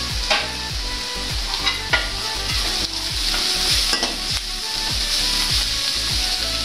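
Sliced carrots, onion and green chillies sizzling in hot oil in a large aluminium wok, with a metal spoon scraping and clinking against the pan as they are stirred.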